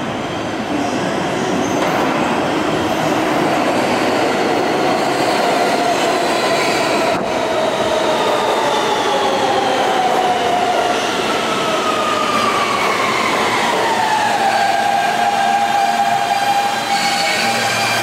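New York City Subway R160B train with Siemens propulsion pulling in and braking to a stop, over the rumble of wheels on rail. Its motors' whine falls steadily in pitch as it slows, then levels off into a steady tone about three-quarters of the way through.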